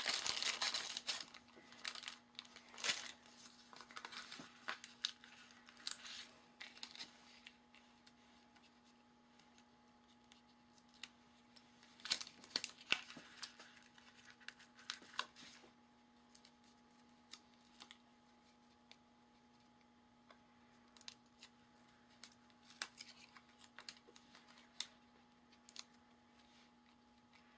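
Hands handling a plastic bag of foam adhesive pop dots and paper: crinkling, rustling and scattered small clicks and taps as the dots are taken out, peeled and pressed down. The handling is busiest in the first half and sparser later.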